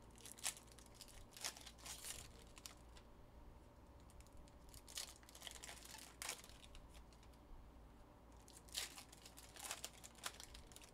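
Faint, scattered crinkles and rustles of trading-card pack wrappers and cards being handled, in short separate bursts.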